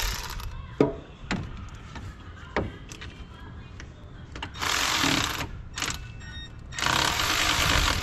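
Milwaukee cordless electric ratchet running in two bursts of about a second each, driving in a bolt to hold the cooling-fan resistor in place. A few clicks and knocks of the tool being handled come before.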